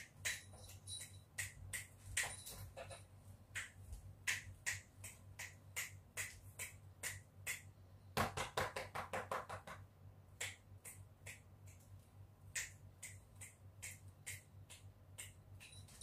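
Fingers snapping again and again, about two snaps a second, with a quicker run of snaps about halfway through, used as a cue to a pet cat; a low steady hum underneath.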